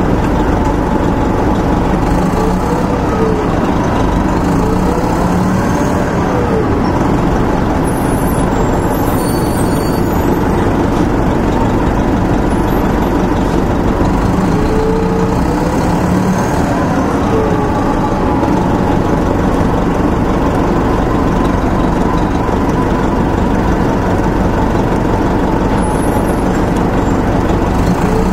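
Transit bus heard from on board, its Detroit Diesel Series 50 four-cylinder diesel and Allison transmission running steadily under way, with a whine that rises and falls a few times.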